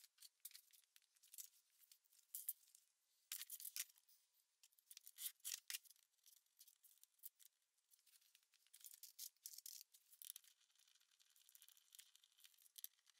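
Faint, irregular scratchy clicks and creaks of a hand screwdriver driving wood screws into a wooden benchtop.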